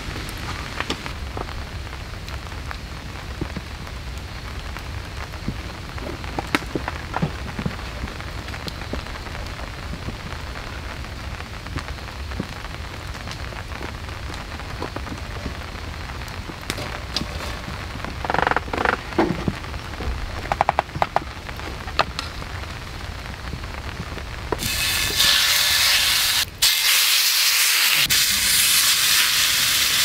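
Steady rain with scattered drops tapping on fabric. About 25 seconds in, a loud bright sizzle takes over: a thick steak frying in a hot skillet over a campfire.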